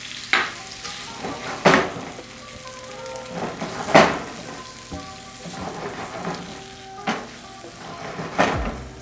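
Chicken curry with freshly added cream sizzling in a pan as it is stirred. A spatula scrapes and knocks against the pan about five times.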